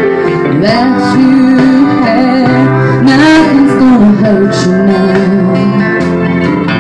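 A woman singing into a microphone, karaoke-style, over a country-style backing track with guitar, her voice holding and bending long notes.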